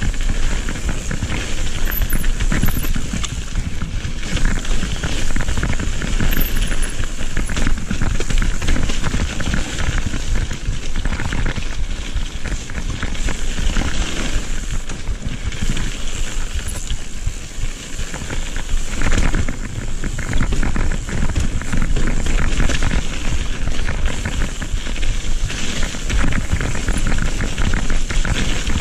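Mountain bike riding fast down dirt forest singletrack: tyres rolling and crunching over the trail, the bike rattling over bumps, and wind rumbling on the helmet camera's microphone.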